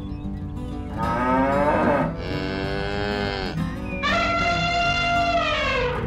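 Cattle mooing, three long calls one after another, over light background music.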